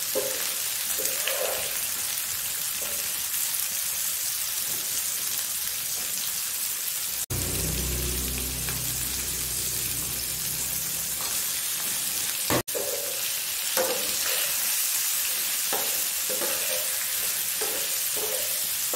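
Potato and eggplant pieces frying in oil in a non-stick pan, sizzling steadily while a metal spoon stirs and scrapes them. The sound cuts out sharply twice, and there is a low rumble for a few seconds between the cuts.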